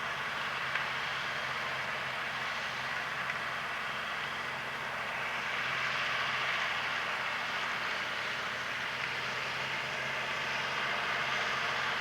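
Farm tractor engine running steadily, with a dense, even rush of machinery noise from potato-harvesting equipment over a low engine hum.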